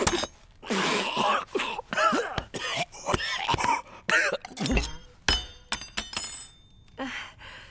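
A male voice spluttering, coughing and choking on soup, then a thump and a run of metallic clinks as a thrown spoon clatters.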